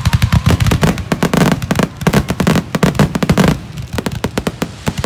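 Fireworks going off in a fast, dense crackle of sharp pops. The pops thin out and soften a little past halfway.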